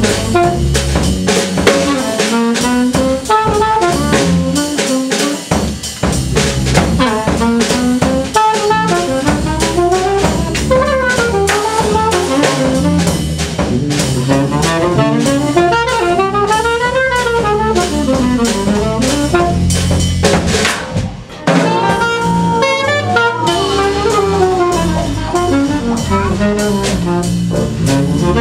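Jazz with a saxophone playing rising and falling runs over a drum kit.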